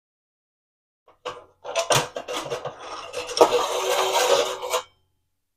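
Metal clattering, clicking and scraping as the metal parts of an electric room heater are handled at its element terminal, starting about a second in and stopping near the end.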